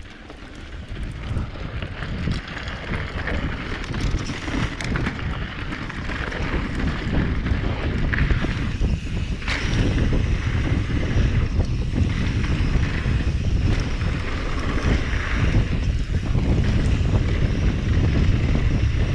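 Wind buffeting the microphone of a camera on a mountain bike riding down a dirt trail, with scattered clicks and rattles. It grows louder over the first several seconds as the bike picks up speed, then holds steady.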